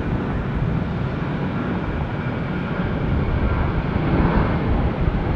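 Jet engines of a Qantas Airbus A380, its Rolls-Royce Trent 900s heard from a distance after landing: a steady jet noise with a faint whine, swelling slightly near the end.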